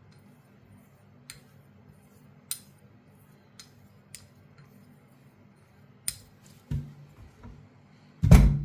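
Light, sharp metallic clicks from handling a straight razor and its sharpening gear, spaced about a second apart. Near the end come a dull knock and then a louder heavy thump.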